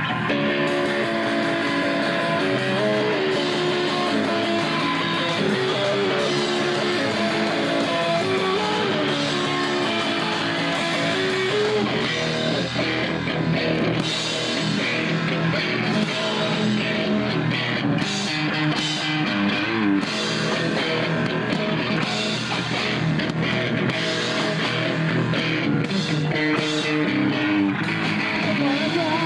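Punk rock band playing live: electric guitars and drum kit, recorded with a distorted, bass-light sound.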